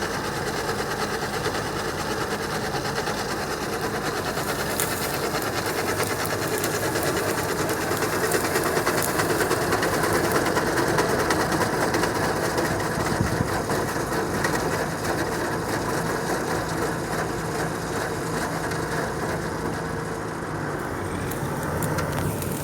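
New Holland 8060 combine harvester running steadily: a low engine drone under a continuous mechanical clatter.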